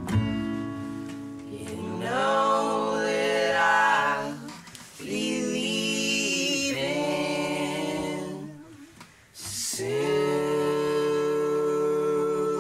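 Men's voices singing together without accompaniment, three long held phrases with short breaths between, as the strummed acoustic guitars fall silent at the start.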